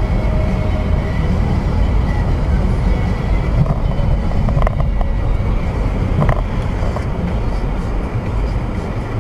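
Car driving, with steady engine and road noise and a couple of short knocks about four and a half and six seconds in.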